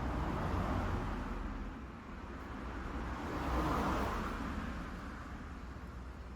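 Road traffic going past: a rushing noise with a low rumble that swells and fades twice, loudest a little over three and a half seconds in.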